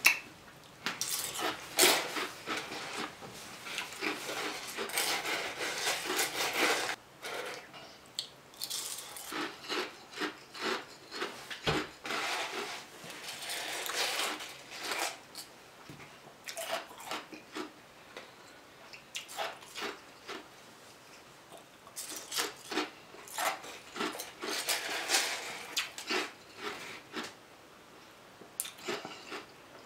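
Crushed ice being crunched and chewed in the mouth. It comes in bursts of crackly crunching, with short pauses between mouthfuls.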